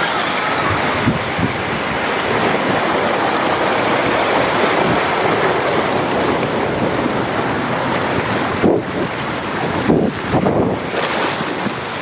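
Water rushing and splashing down an open waterslide flume as a rider slides through it, heard close on the rider's camera with wind on the microphone. There are louder splashes around nine and ten seconds in.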